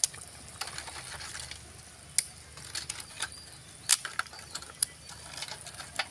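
Crisp fried appalams (papads) being snapped into pieces by hand over a steel tray: a string of sharp, irregular cracks and crackles, each one short.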